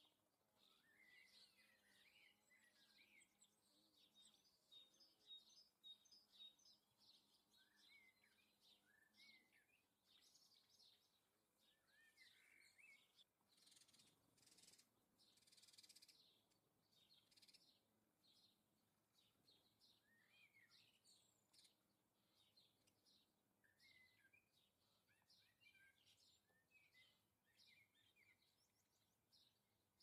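Faint chirps and twitters of small songbirds: many short calls that glide up and down in pitch, scattered throughout. A brief rush of noise comes about fourteen seconds in.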